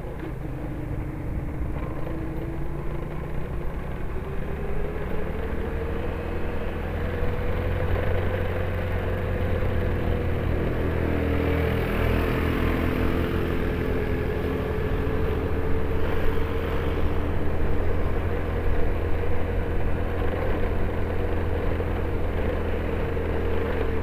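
Motorcycle engine running under way on a ride. Its pitch climbs over the first several seconds, dips briefly about halfway through, then holds steady, over a constant low rumble.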